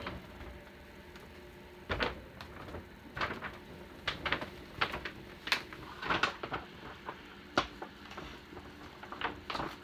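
Large paper gift bag rustling and crinkling in irregular short crackles as a person stands in it and squirms to fit, with a few light knocks.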